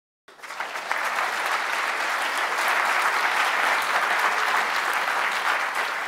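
Audience applauding: dense clapping that starts suddenly, holds steady and begins to die down near the end.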